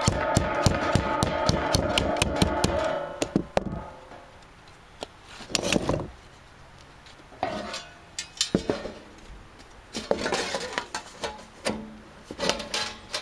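Sheet metal being bent with a hand tool. For the first few seconds it rattles and rings, with rapid clicks about five a second. Then come shorter bursts of scraping and flexing as the metal pieces are handled and fitted together.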